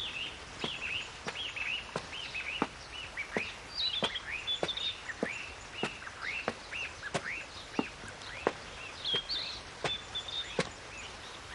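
Birdsong ambience: many small birds chirping in quick, arching calls, with a faint regular tick about every two-thirds of a second.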